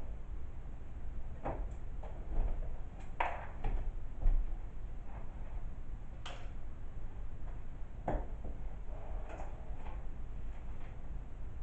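Scattered clicks and small knocks of computer parts being handled, over a steady low hum.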